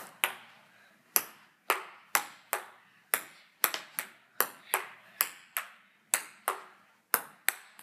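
Table tennis rally: the ball clicking against the paddles and the table in a steady run of about sixteen sharp hits, roughly two a second.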